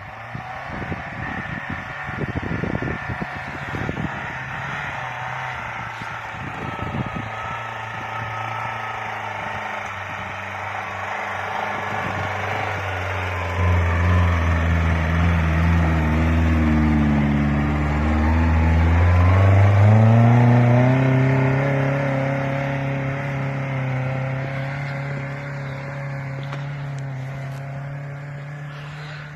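An off-road vehicle's engine working hard under load. Its pitch sags for a few seconds, then climbs as it revs up near the middle, its loudest point, and holds steady after that. There are some knocks in the first few seconds.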